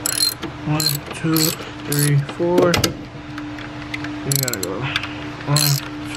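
Ratchet wrench clicking in about half a dozen short bursts of strokes as the mounting bolts of a high-pressure fuel pump are backed out slowly. The pump is spring-loaded against its camshaft lobe.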